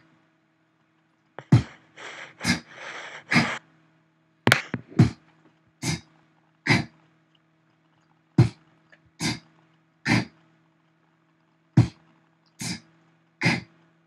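Beatboxer's vocal percussion: short, separate B, T and K mouth sounds made with the vowels taken out, one at a time with pauses, ending in two quick groups of three.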